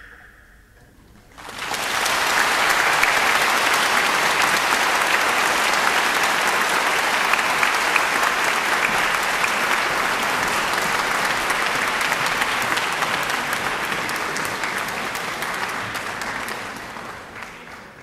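Concert-hall audience applauding, starting about a second in after the last ring of a high erhu note dies away, holding steady and then fading out near the end.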